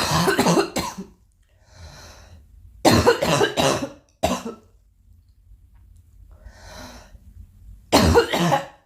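A girl coughing in three fits, each a rapid run of several coughs: one at the start, one about three seconds in ending in a single short cough, and one near the end, with faint breaths between.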